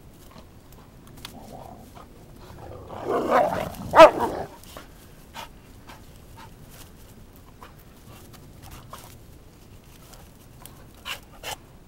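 Dog barking and whining in a burst about three seconds in, with one sharp bark at its peak. Scattered light clicks and knocks before and after, two of them close together near the end.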